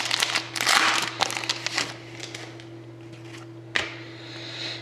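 A trading-card pack wrapper being torn open and crinkled for about the first two seconds. It is followed by a few faint rustles and one sharp click, over a steady low hum.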